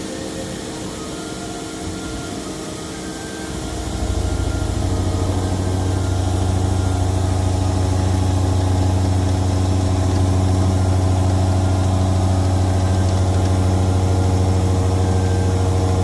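CNC machining centre running a face-milling pass with new inserts, compressed-air blast hissing throughout. About four seconds in, a loud, steady low hum starts and holds as the face mill takes a 1 mm deep cut at 800 rpm.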